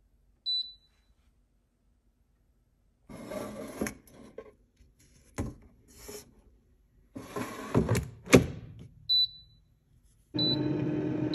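Insignia digital air fryer's touch panel beeping as its buttons are pressed: one short high beep about half a second in, more near the end. Between them come stretches of rustling and sharp knocks, the loudest a few seconds from the end, and in the last second a steady whir with a slowly falling pitch starts.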